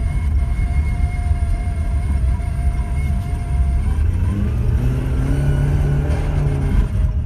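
Lada Priora engine running under way with a loud, ugly drone, the noise of its wrecked water pump with a destroyed impeller. About four seconds in, a second tone rises and then falls away.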